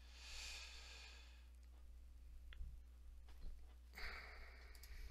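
Near silence: a soft breath into a close microphone, a few faint mouse clicks and a steady low electrical hum.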